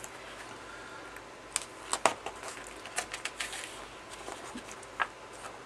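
Glossy magazine pages being handled and turned: scattered paper rustles and sharp crinkles, the loudest about two seconds in and another near the end.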